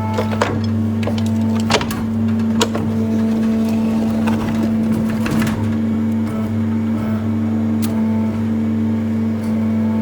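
Steady electric motor hum from radio-controlled model construction machinery, with a few sharp clicks and a short stretch of rattling, like gravel being moved, about four to five seconds in.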